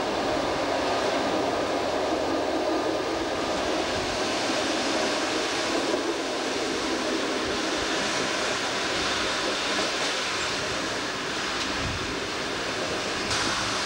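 ALn 776 diesel railcar under way, heard from inside its cab: the turbocharged 8217.32 diesel engine running together with the wheels rolling on the track, a steady running noise. A brighter hiss comes in just before the end.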